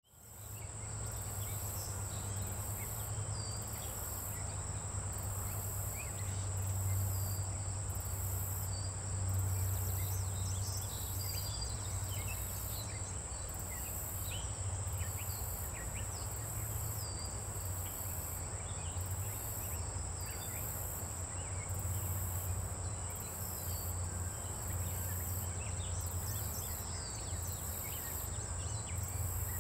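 Outdoor insect chorus: a steady shrill drone with a higher layer pulsing on and off about once a second, over a steady low rumble, with faint scattered bird chirps.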